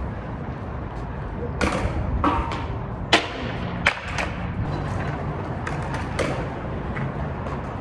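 Skateboard rolling on smooth concrete with a steady low rumble of the wheels, broken by several sharp clacks of the deck and wheels hitting the ground, the loudest about three seconds in.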